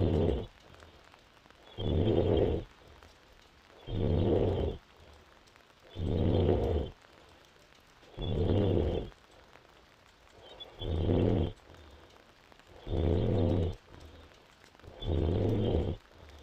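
A five-months-pregnant woman snoring in deep sleep. The snore is low and buzzing, comes about every two seconds in an even rhythm, and each one lasts under a second.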